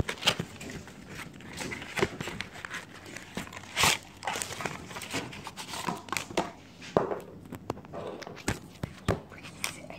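Cardboard carton of Citro-Soda granules being opened and handled: rustling with irregular clicks and knocks, and one louder rasp a little before four seconds in.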